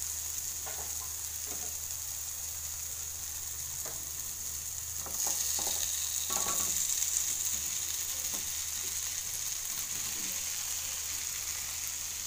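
Onion-tomato masala sizzling in oil in a frying pan, with scattered soft knocks as boiled jackfruit seeds and potato pieces go into the pan. The sizzle gets louder about five seconds in.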